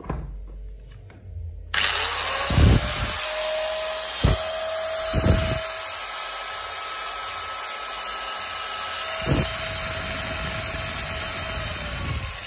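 Handheld electric angle grinder with no disc fitted, switched on about two seconds in. It spins up with a rising whine, runs steadily at full speed with a few handling knocks, and starts winding down near the end.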